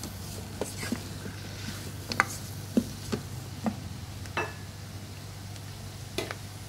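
Wooden spatula stirring beef and curry powder in the non-stick inner pot of an electric pressure cooker: a few short knocks and scrapes against the pot over the first four seconds and one more near the end, over a faint sizzle and a steady low hum.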